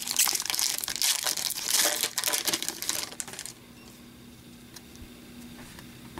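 Foil wrapper of an Upper Deck hockey card pack crinkling and crackling as the pack is opened and the cards are pulled out. It stops about three and a half seconds in, leaving only faint soft ticks of the cards being handled.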